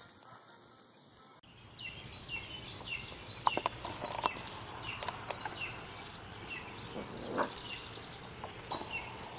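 Outdoor ambience in which a bird calls over and over, a short high chirp about twice a second, starting about a second and a half in, with scattered sharp knocks over the top; the first second and a half is faint.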